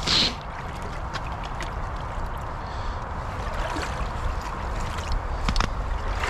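A short splash of water just after the start, then gurgling water with scattered small clicks and knocks over a steady low rumble.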